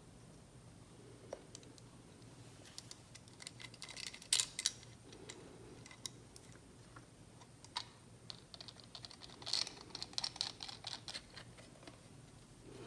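Faint, scattered small clicks and taps of metal and glass parts handled by hand: the glass sediment bowl and its wire bail clamp being fitted onto a rebuilt Ford flathead fuel pump. The sharpest clicks come about four and a half seconds in, and a quicker cluster follows about nine to eleven seconds in.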